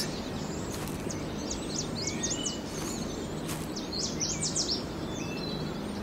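Forest ambience: a steady hiss with a faint low hum, broken by two short runs of quick, high bird chirps, about a second in and again around four seconds in.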